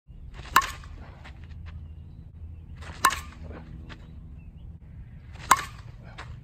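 A senior slow-pitch softball bat hitting three pitched softballs, each contact a sharp crack with a short metallic ring, about two and a half seconds apart.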